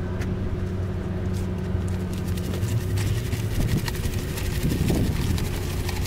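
Pickup truck engine idling steadily close by, with faint scattered ticks and scuffs of footsteps on icy pavement.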